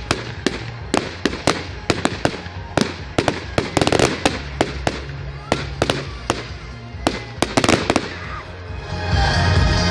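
Fireworks going off: an irregular run of sharp bangs and crackles, about two or three a second, with music playing underneath. The bangs stop and the music swells louder near the end.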